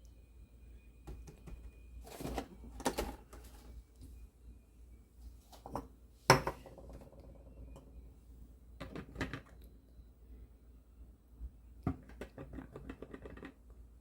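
Hard objects being handled: scattered clicks, taps and clatters in small clusters, with one louder knock a little after six seconds and quick runs of clicking near the end.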